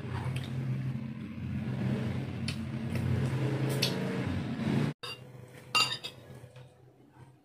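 A spoon clinking against dishes: a few light clicks, then one sharp, loud clink near the end. A low steady background hum runs under it and drops away suddenly about two-thirds of the way through.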